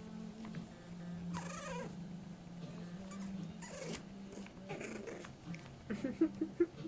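Four-week-old French bulldog puppies whining and squealing as they play, with a few drawn-out cries. Near the end comes a quick run of short, sharp squeaky cries, the loudest part.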